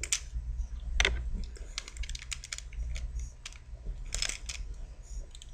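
Plastic Rubik's Cube pieces clicking and clacking in irregular runs as a layer is twisted and loose pieces are pushed into place during reassembly. The loudest clicks come about a second in and again around four seconds in.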